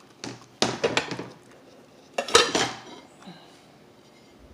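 Dishes clattering and clinking as they are handled: a ceramic plate knocking against a glass mixing bowl as it is set over the bowl to cover it, in three short bursts, the last with a brief ring.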